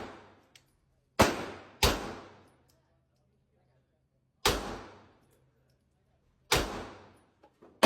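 Gunshots fired one at a time at a shooting range: five shots at uneven gaps, the first two close together, each with a short ringing echo.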